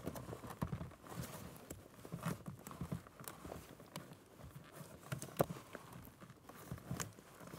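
Gloved fingers working a plastic wiring connector on a blower motor, pressing its release button and tugging at it: scattered faint plastic clicks, taps and rubbing, with one sharper click about five seconds in.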